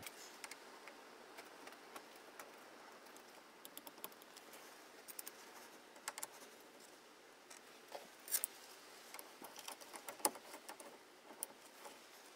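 Faint, scattered metallic clicks and taps of a steel socket being handled and fitted onto a brake caliper's banjo bolt, with a few louder clinks past the middle.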